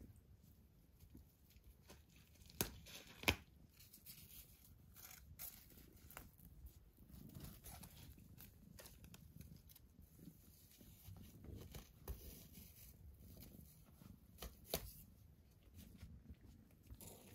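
Faint rustling and scraping of kittens' claws and bodies against the nylon mesh of a play tent, with a few sharp clicks, the loudest two about three seconds in and another near the end.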